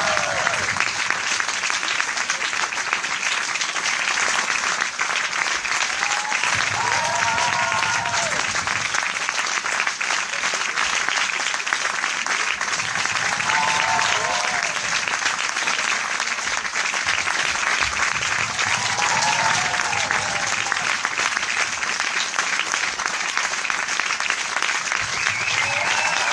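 A large crowd applauding, steady and dense clapping throughout. A short burst of voices cheering rises over it about every six seconds.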